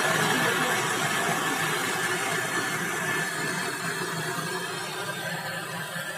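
A steady hiss that slowly fades.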